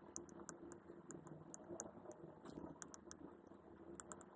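Near silence with faint, irregular ticks of a stylus tapping on a tablet as handwriting is written.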